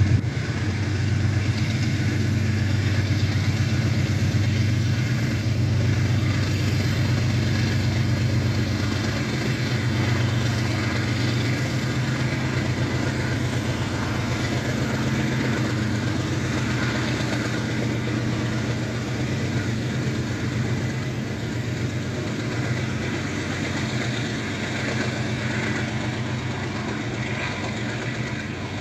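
Freight train hauled by two GE U20C diesel locomotives passing at a distance: a steady low engine drone with the rumble of the wagons rolling, fading slowly.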